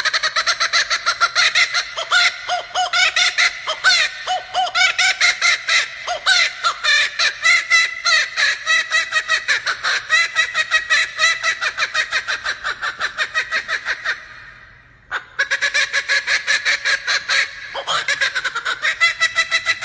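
Laughing kookaburra giving its laughing call: a long run of rapid, loud repeated notes that breaks off briefly about fourteen seconds in, then starts up again.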